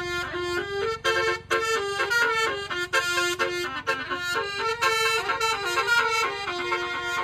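Telolet bus horn, a Basuri-type multi-tone air horn, playing a fast melody: several tones sound together and jump from note to note in quick steps.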